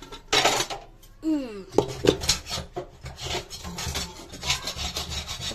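A metal slotted spoon scraping and stirring sticky, syrup-coated boondi in a steel pot, in repeated irregular strokes. A short noisy burst comes about half a second in, and a brief falling squeak-like sound a little after one second.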